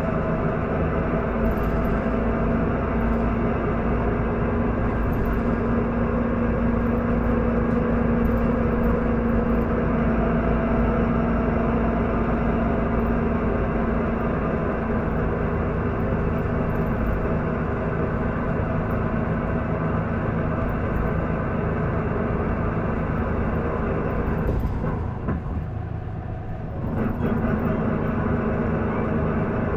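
Isuzu Erga city bus's straight-six diesel heard from inside the bus, pulling steadily under load with a strong steady drone. This is a bus whose owner-recorder says it makes an abnormal noise it did not have when new. About 25 seconds in the sound drops and quietens for a couple of seconds, as on a gear change or lift-off, then picks up again.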